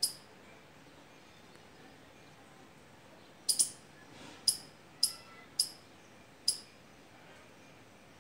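Squirrel giving short, sharp, high-pitched chirps: one at the start, then six more in a quick, uneven series from about three and a half seconds in.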